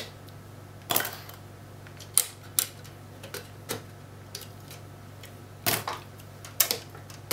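Sharp plastic-and-metal clicks of DIMM slot latches being snapped open and DDR3 RAM sticks being pulled from an HP DL580 Gen8 memory cartridge: about eight separate clicks at uneven intervals over a steady low hum.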